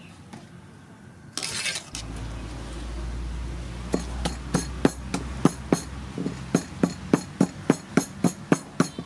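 Wooden pestle pounding chilies in a wooden mortar: sharp, even knocks about three a second, starting about four seconds in.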